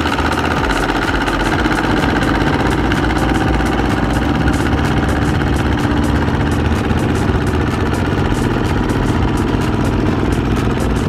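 Kubota two-wheel tractor's single-cylinder diesel engine running steadily under load with a fast, even knock, as it strains to pull a loaded trailer out of mud.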